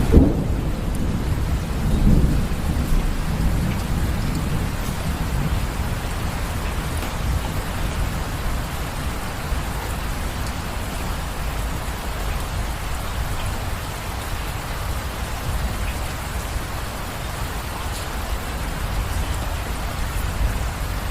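Steady heavy rain with a thunderclap right at the start and a second rumble of thunder about two seconds in, dying away into the even hiss of the rain.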